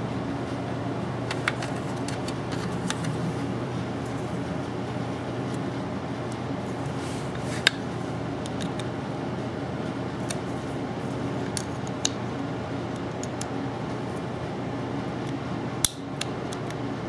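Scattered light clicks and taps as a CPU water cooler's mounting bracket is handled and fitted around the socket, with a sharper click about halfway through and another near the end, over a steady low hum.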